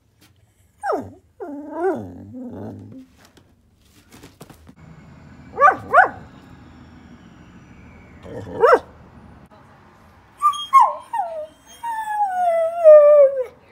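A Bedlington whippet lurcher vocalising in a string of sounds. First comes a wavering moan about a second in. Two short sharp barks follow near the middle and another a few seconds later, then a run of drawn-out whines, each falling in pitch, near the end.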